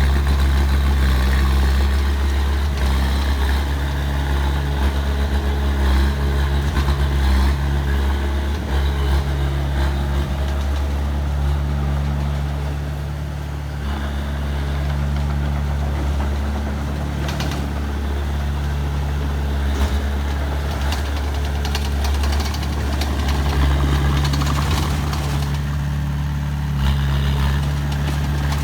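Diesel engine of heavy earthmoving machinery running steadily with a deep, even hum, its note shifting slightly as the machine works.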